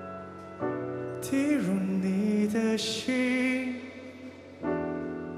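Slow piano ballad: grand piano chords struck and left to ring, with a male voice singing a sliding, held line in the middle.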